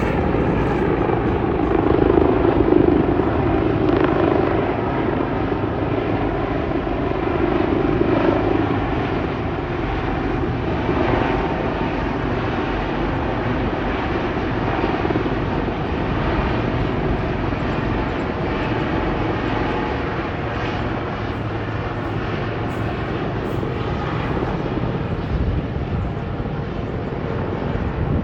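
Military helicopters flying: a steady, loud rotor and turbine drone, loudest a couple of seconds in.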